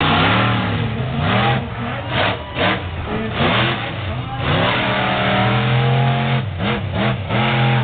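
Bigfoot Bessie monster truck's engine revving hard. Its pitch swings up and down in quick blips, then holds high for over a second about five seconds in, with a few more quick blips near the end.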